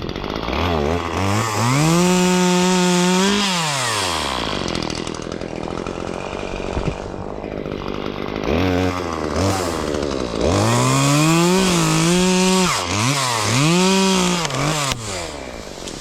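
Two-stroke chainsaw revving up to a high, steady pitch for a couple of seconds, dropping back to idle, then revving again in several surges from about halfway through while cutting through maple branches.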